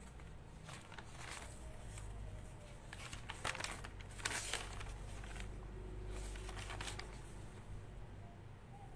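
Paper rustling and crinkling as sheets are handled, in short scattered bursts, the strongest a little past the middle, over a faint steady low hum.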